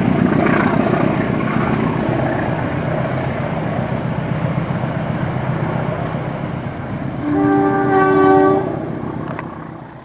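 A passenger train's coaches rumbling along the rails, the sound slowly fading as the end of the train goes by. About seven seconds in, the CC 203 diesel locomotive's horn sounds one loud blast of about a second and a half.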